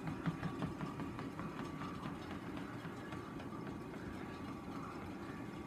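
Motorized treadmill running steadily, its motor humming and the belt rumbling, with faint irregular taps of a cat's paws on the moving belt.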